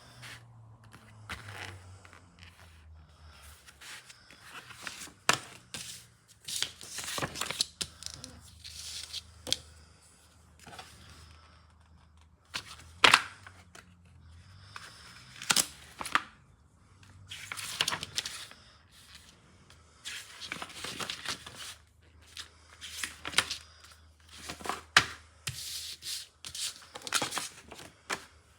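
Close-up handling noises: scattered tearing and rustling with sharp knocks and clicks at irregular intervals, over a faint low hum.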